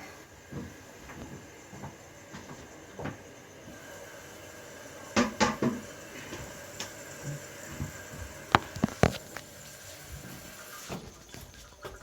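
Hard knocks and clinks of a porcelain toilet tank lid being handled, a pair about five seconds in and another pair about three seconds later, over a faint steady hiss.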